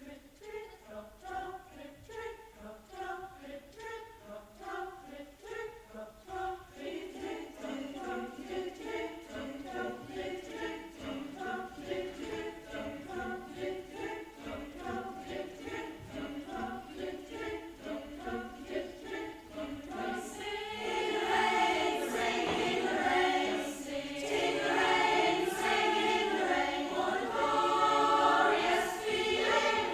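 A choir singing short, rhythmic notes, soft at first and building, then markedly louder and fuller about twenty seconds in.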